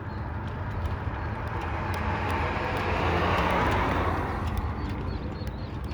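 A vehicle passing by: its noise swells to a peak about three and a half seconds in, then fades away, over a steady low rumble.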